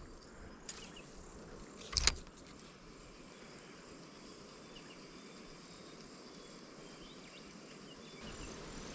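Faint insect chirping over a steady outdoor hiss. A sharp double knock comes about two seconds in, and lighter clicks come at the very start.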